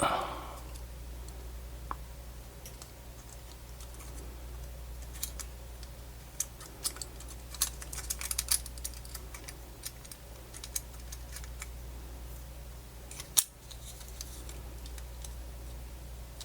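Small plastic and metal parts of a portable MiniDisc player clicking and ticking as they are handled and fitted together, with one louder sharp click about 13 seconds in. A steady low hum runs underneath.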